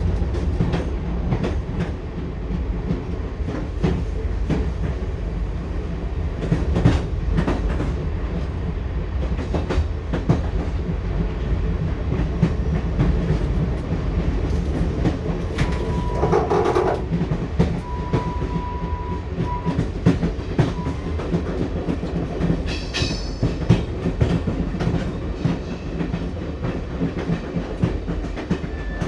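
Passenger railway carriage running, heard from inside: a steady low rumble with the clickety-clack of the wheels over the rail joints.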